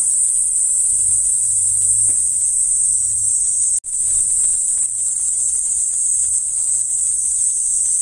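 Cicadas shrilling in a steady, high chorus. Wind rumbles on the microphone for a few seconds in the first half, and all sound cuts out for an instant about halfway through.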